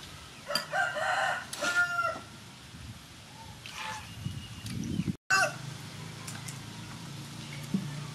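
A rooster crowing once, a call of about a second and a half starting about half a second in, followed by a few shorter, fainter calls.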